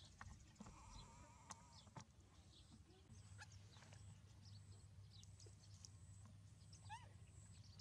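Faint high-pitched animal squeaks and chirps scattered throughout, with a wavering cry about a second in and a short run of rising calls near the end, over a low steady hum.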